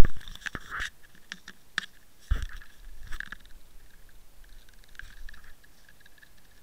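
Handling noise picked up by a Water Wolf underwater camera's own microphone: scattered clicks, scrapes and knocks on its housing, with one heavier thump about two seconds in, as the camera swings and spins on the line.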